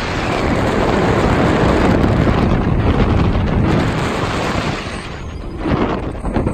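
Wind blasting the phone's microphone on a motorboat running at speed: a loud, steady rushing noise that eases about five seconds in, then comes back in gusts.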